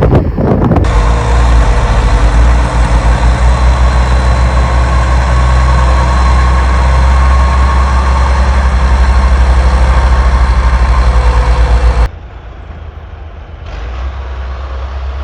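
A large engine running loud and close with a fast, even throb. About twelve seconds in it cuts abruptly to a much fainter engine sound.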